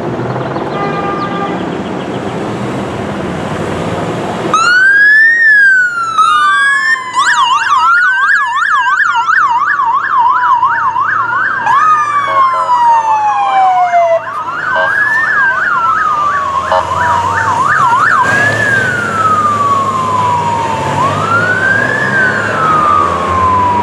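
Electronic police vehicle sirens. After a few seconds of road and engine noise, a siren cuts in suddenly about four and a half seconds in. It alternates between a slow rising-and-falling wail and a fast yelp, and at times a second siren overlaps it.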